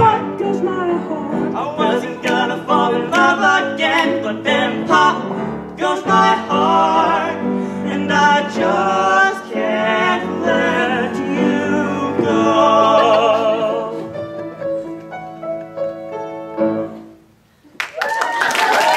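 Male vocals sing the closing phrases of an 80s-style pop song over a backing track, ending on long wavering held notes that fade away. After a brief moment of quiet, audience applause breaks out near the end.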